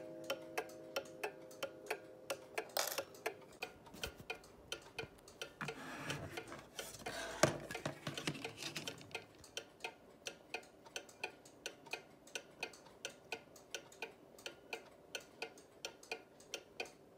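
Small mechanical striking clock, thought by its owner to be a Junghans, ticking steadily at about three beats a second. About halfway through there is a stretch of handling noise with one sharp knock.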